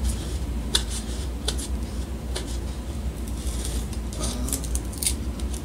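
Blue painter's tape being picked at and peeled off a painted foam seaplane float: scattered crackles and short rips, over a steady low hum.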